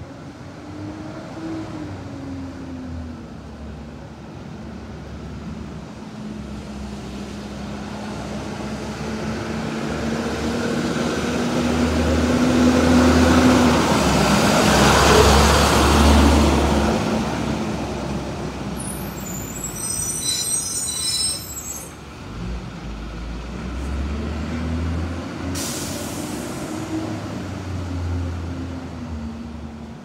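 School bus (Blue Bird body on an International 3800 chassis) with a diesel engine, approaching, driving past close by about halfway through and pulling away. Its engine note drops in pitch as it passes. A few seconds after the pass there is a brief high squeal.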